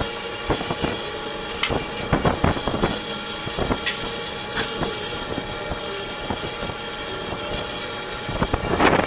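Old metal lathe running: a steady motor and gear hum with irregular clicks and clattering knocks, getting louder and noisier near the end.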